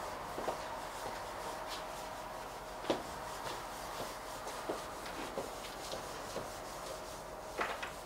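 Chalkboard being wiped with a cloth: soft rubbing with scattered light knocks, over a faint steady hum.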